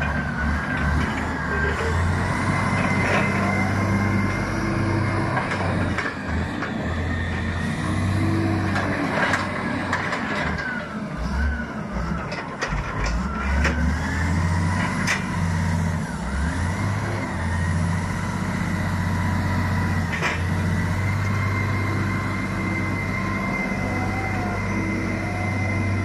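Caterpillar 980C wheel loader's diesel engine working under load, its note stepping up and down as it is throttled, with a high whine gliding up and down over it. A few sharp knocks come now and then.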